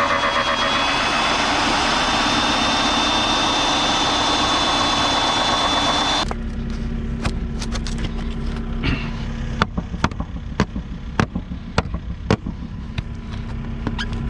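Volvo EC60E excavator working: the engine and hydraulics run hard with a steady high whine, then about six seconds in the sound changes abruptly to a lower steady hum with a string of sharp knocks and clatters.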